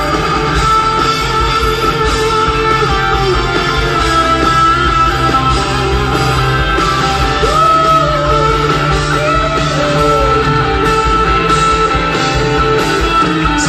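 Live rock band playing through a PA: electric guitars over drums, with long held notes and some bending lines partway through.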